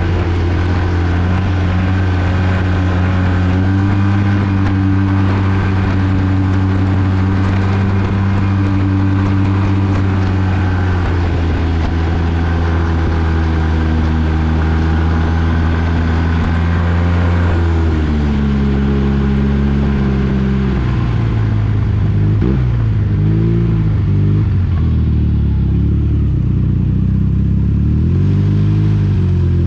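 Arctic Cat 1100 Turbo snowmobile's three-cylinder four-stroke engine, fitted with an MBRP exhaust, running at a steady high speed. A little past halfway the throttle comes off and the engine note drops as the sled slows. Near the end the revs rise and fall several times with short throttle blips.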